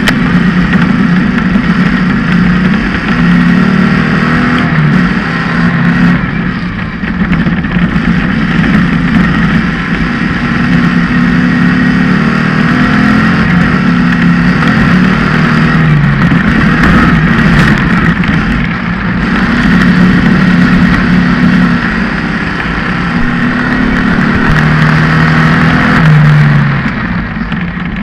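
Off-road racing buggy's engine, heard close up from a camera mounted on the buggy, running hard with the revs rising and falling as the throttle and gears change over the dirt track. The revs drop away near the end.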